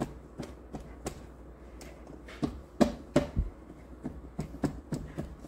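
A small glass tumbler pressing and tapping buttered chocolate-biscuit crumbs down into the base and against the sides of a metal cake ring. It makes a string of soft, irregular knocks, loudest about three seconds in.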